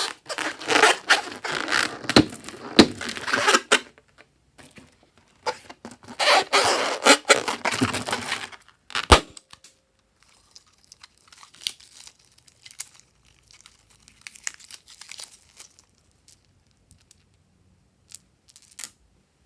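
Slime and balloon handling: dense crackling, crinkling noise in two long stretches, a sharp click about nine seconds in, then only scattered faint clicks.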